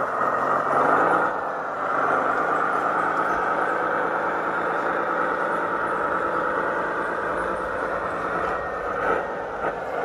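Radio-controlled model truck driving, a steady, unbroken drone of motor and drivetrain.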